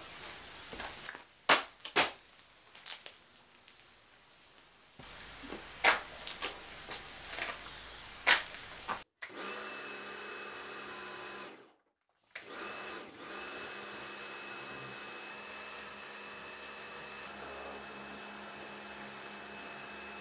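A few sharp knocks and clicks, then, from about halfway, an electric pressure washer running steadily with a high whine as its jet is sprayed onto a stone wall.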